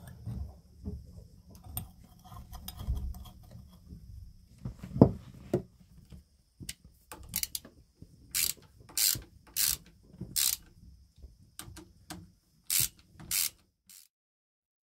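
Small ratchet wrench clicking in short strokes as the cover-plate screws of a raw-water pump are driven home after a new impeller is fitted. Light handling clicks come first, then one sharp knock about five seconds in, then a run of about ten quick ratcheting strokes in the second half.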